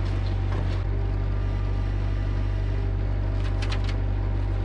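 Excavator engine running steadily at a constant speed, with a few light clicks about three and a half seconds in.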